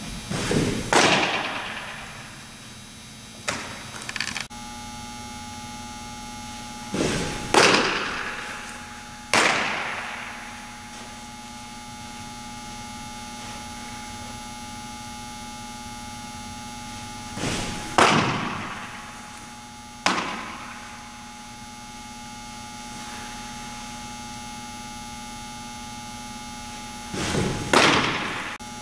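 Softball smacking into leather gloves as pitches are caught and thrown back, sharp cracks that echo around a large indoor hall, coming in pairs about every ten seconds, with a steady electrical hum underneath.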